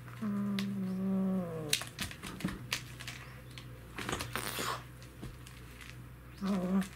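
Cat pawing a toy mouse that hangs on a string from a sisal scratching post: scattered taps and a scratchy rustle about four seconds in. There is a long, low call held for about a second and a half near the start, and a short one near the end.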